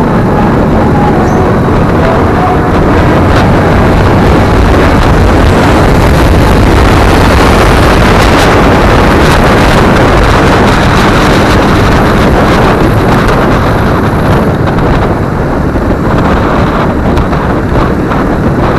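Wind rushing over the microphone of a Honda automatic scooter on the move, with the scooter's engine and tyre noise running steadily underneath; the wind grows a little louder in the middle stretch.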